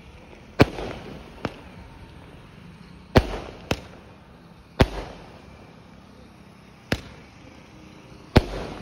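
A Ramji 15-shot multicolour firework cake firing, its shots going off as about seven sharp bangs spaced one to two seconds apart. Some bangs are followed by a short crackling tail.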